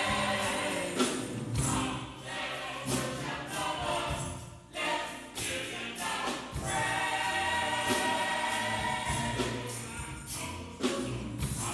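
Church choir singing a gospel song with instrumental accompaniment and percussion hits.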